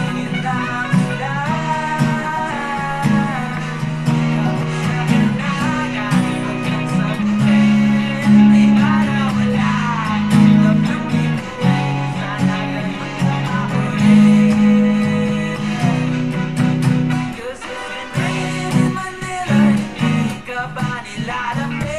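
Acoustic guitar strummed through a G, A and B minor chord progression, with a singing voice over it.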